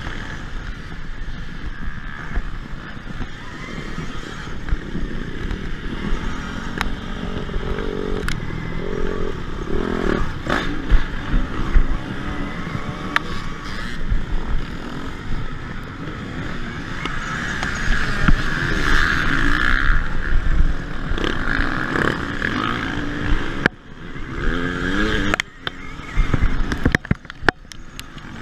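KTM Freeride-E electric dirt bike riding hard over a rough cross-country track: the electric motor's whine swells and fades with the throttle, with knocks and rattles from the bumps. Nearby petrol dirt bikes can be heard revving, and the level drops out abruptly several times near the end.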